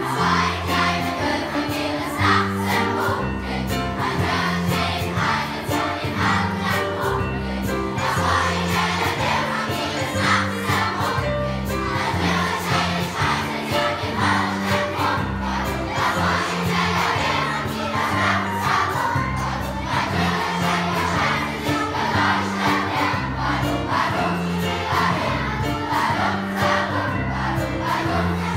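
A large children's choir singing together over an instrumental accompaniment with sustained low bass notes.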